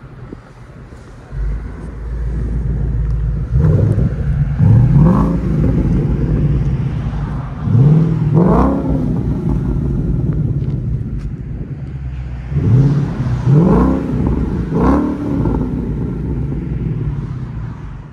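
2017 Ford Mustang GT's 5.0 Coyote V8 through an X-Force Varex cat-back exhaust with its valves open, revving up in several quick rising surges over a steady low rumble.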